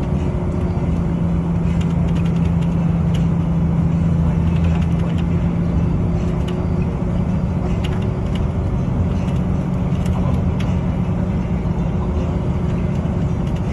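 Car driving at a steady speed: a continuous low rumble of engine and road noise with a steady hum and a few light ticks.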